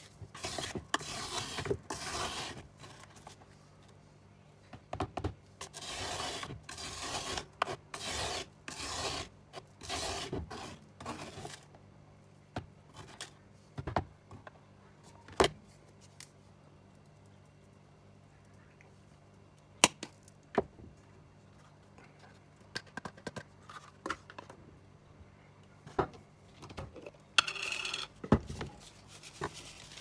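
A metal spoon scraping and scooping a thick paste from a plastic tub, in a run of repeated strokes over the first dozen seconds, followed by scattered sharp clicks and taps of utensils and containers and a short rasping burst near the end.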